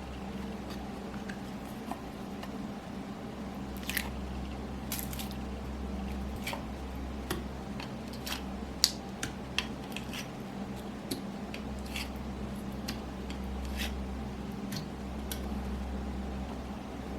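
Slime being kneaded and mixed by hand, giving irregular small squelching pops and clicks, the sharpest about nine seconds in, over a steady low hum.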